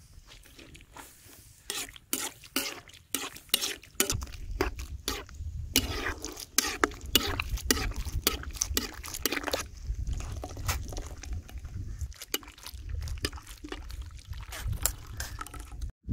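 Sliced garlic frying in hot oil in a wok: a dense, irregular run of crackles and pops, with a low rumble underneath from about four seconds in.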